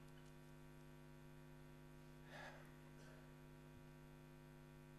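Near silence: a faint steady electrical hum, with a brief faint rustle about halfway through.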